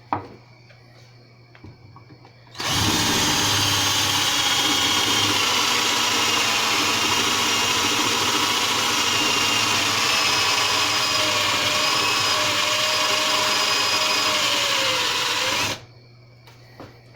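Electric drill spinning a homemade cast-lead roll crimper pressed onto the mouth of a 12-gauge shotgun shell to roll-crimp it. It starts about two and a half seconds in, runs steadily with a whine for about thirteen seconds, and stops suddenly a little before the end.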